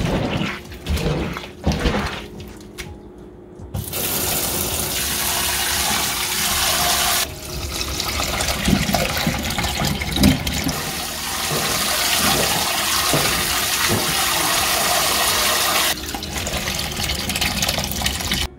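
Boiled soybeans squished and rubbed by hand in a bowl of water for the first few seconds. From about four seconds in comes a steady rush of water that steps down in level twice: the water is poured off the beans into the sink, carrying away their loosened skins.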